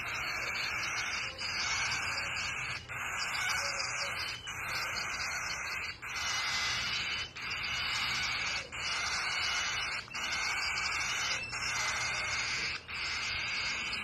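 Two cockatiel chicks giving raspy, hissing begging calls without let-up, broken by a short pause about every second and a half.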